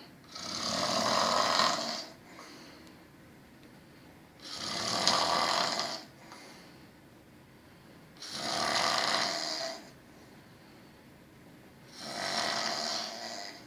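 Snoring: four long, noisy snores at an even pace, about one every four seconds, with quiet breathing gaps between.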